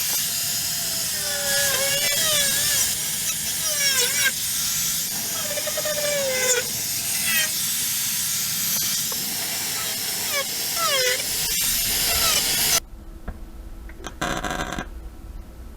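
Power tool working sheet metal: a loud, dense hiss with a whine that slides up and down in pitch. It cuts off abruptly about thirteen seconds in, and a few short scraping bursts follow.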